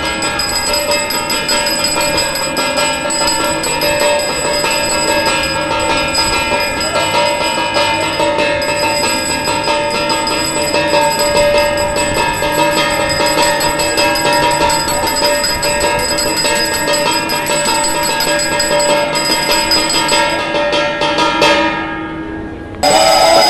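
Temple aarti bells ringing continuously and rapidly, a dense ring of many overlapping tones. The ringing fades away about 21 seconds in, and a louder, different sound cuts in abruptly near the end.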